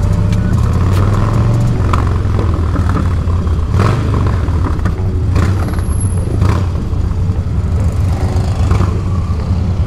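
Harley-Davidson Dyna Clubstyle's air-cooled V-twin running steadily on the road during a ride, with a few brief sharp sounds over the engine.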